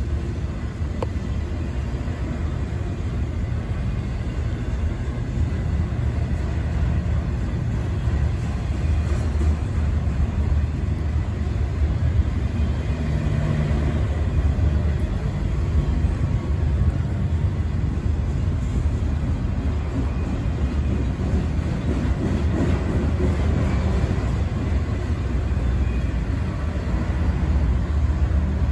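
Intermodal freight train cars rolling past on the rails, a steady low rumble of wheels and cars that holds even throughout.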